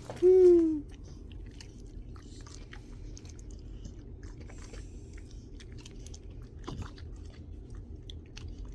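American bully dog chewing and crunching chicken nuggets, with scattered small crunches and clicks. A short falling vocal sound, the loudest thing, comes right at the start.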